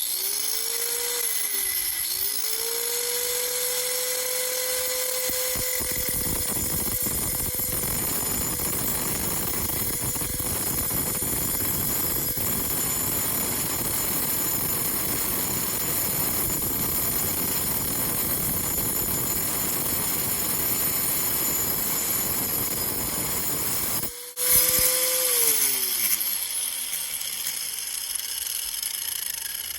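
Angle grinder cutting into a geode: the motor spins up to a steady high whine over a coarse grinding of blade on stone. Near the end it cuts out for a moment, starts again, then winds down with a falling pitch.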